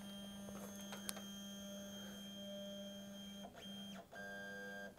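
3D printer stepper motors humming faintly as the Tevo Tarantula Pro auto-homes. There is a steady low hum, brief stops about three and a half and four seconds in, then a different, higher whine near the end as another axis moves. This is the homing run that checks that the newly fitted EZABL Pro bed-levelling sensor stops the nozzle 2 mm above the bed.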